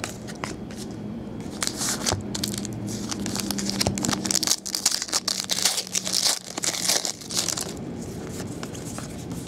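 Foil trading-card pack crinkling and tearing as it is opened by hand, a dense run of crinkles and small clicks, with the cards inside rustling as they are handled.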